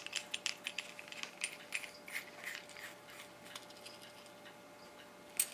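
Faint, irregular small metallic clicks and ticks as a screwdriver turns the screw in the aluminum balance pan of an RCBS 502 powder scale, with loose copper pellets and lead shot inside it. The clicks thin out after a few seconds, with one sharper click near the end.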